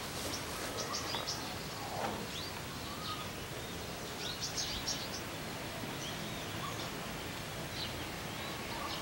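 Birds chirping and calling in short clusters, about a second in, around four to five seconds and again near the end, over a steady outdoor background hiss.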